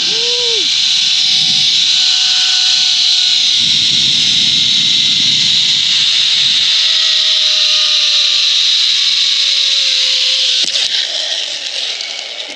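Zip-line trolley running fast along the steel cable: a loud, steady hiss with faint whining tones, one slowly falling in pitch. It dies away near the end as the ride slows.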